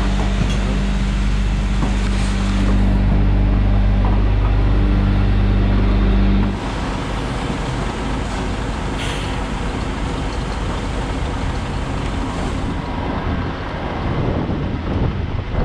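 Scania S650's 16-litre V8 diesel running steadily at low revs, an even low hum. About six and a half seconds in the engine tone cuts off suddenly, giving way to a rough, rumbling rush of wind on the microphone.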